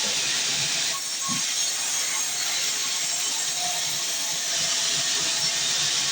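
Sawmill bandsaw blade cutting through a heavy, dense log: a steady, loud hiss, with slight changes in tone about a second in and again midway through.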